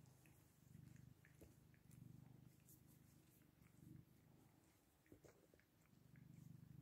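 Grey tabby cat purring faintly while being scratched under the chin, the low purr swelling and easing with each breath. A few soft clicks about five seconds in.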